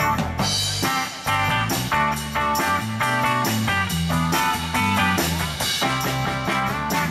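Live rock band playing: electric and acoustic guitars over a drum kit, with a steady beat.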